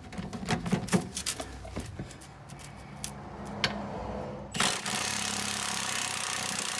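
Milwaukee Fuel cordless impact wrench hammering on a rusted 24 mm lower shock absorber nut to break it loose. A few clicks and knocks come first as the socket is fitted. Then, a little past halfway, comes steady loud hammering for about two seconds.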